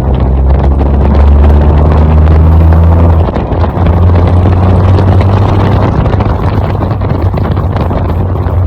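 Remapped Maruti Suzuki Baleno engine and exhaust droning steadily while driving, the low note stepping up in pitch about three seconds in, with wind on the microphone.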